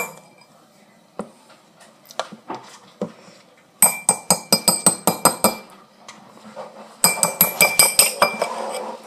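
Quick clinking taps on a glass or ceramic dish, each with a short bright ring. A few lone clinks come first, then two fast runs of about ten taps each, one near the middle and one near the end.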